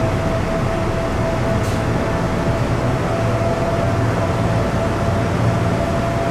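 Hanshin red-bodied electric railcar standing at the platform with its on-board equipment running, heard from inside the driver's cab: a steady electrical hum with a constant high whine held over it.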